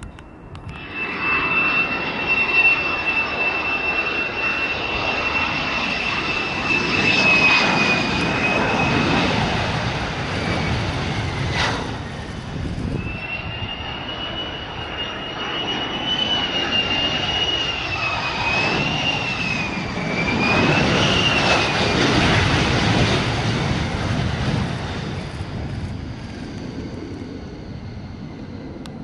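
F-35 fighter jets on low landing approach, the single F135 turbofan making loud jet noise topped by a high whine. The whine holds steady, drops out briefly near the middle, then comes back wavering up and down in pitch.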